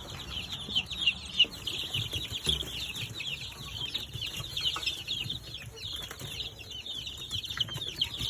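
Many young chicks peeping at once, a dense stream of short, high, falling chirps, with rustling, scuffling and fluttering as they are stirred up.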